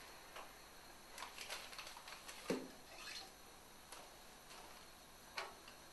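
Faint kitchen handling sounds as butter is unwrapped and put into a frying pan: light paper crinkles and small clicks and knocks, with the sharpest knock about two and a half seconds in and another near the end.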